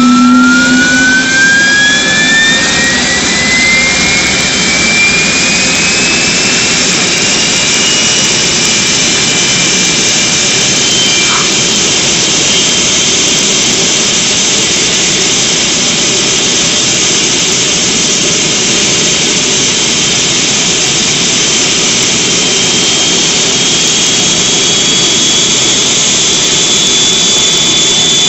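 DIY turbojet engine built from an HC5A turbocharger running on a first start test: a loud, steady jet rush with a high turbine whine that rises in pitch over the first several seconds as it spools up, then holds steady.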